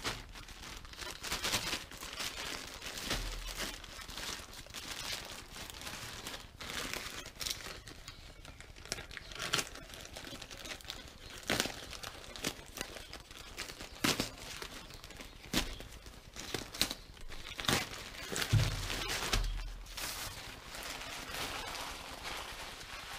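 Plastic courier mailer bag crinkling and tearing as it is handled and ripped open: irregular sharp rustles and rips, with a few low thuds about three-quarters of the way through.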